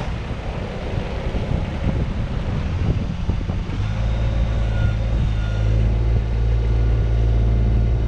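Kubota BX25 subcompact tractor-backhoe's three-cylinder diesel engine running, with wind on the microphone. About halfway through, the engine sound settles into a louder, steady low drone.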